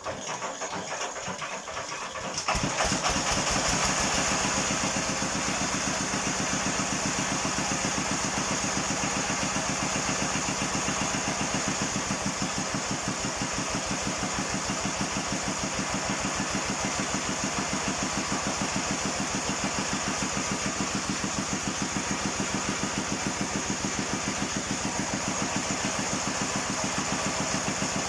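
An 11-horsepower Thale Thong walking-tractor engine, a single-cylinder diesel, running just after starting. About two and a half seconds in it gets louder, then runs steadily with an even, rapid beat.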